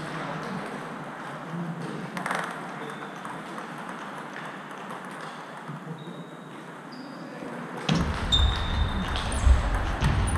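Table tennis balls clicking off bats and tables in a large sports hall, with a few short high-pitched squeaks. About eight seconds in, a rally starts close by and its ball hits come louder.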